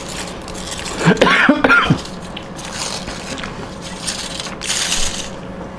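A person coughing and clearing the throat while eating, a voiced, pitch-bending cough about a second in, then a short breathy burst near the end.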